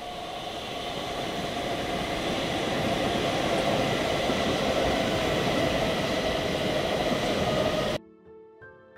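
Train running: a steady rushing rumble that builds over the first few seconds and then holds. Near the end it cuts off abruptly and gentle music takes over.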